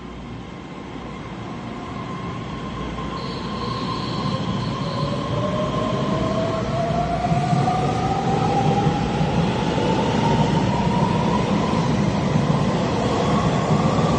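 Taiwan Railways EMU3000 electric multiple unit pulling away and accelerating. Its traction motor whine rises steadily in pitch while the rumble of wheels on rail grows louder.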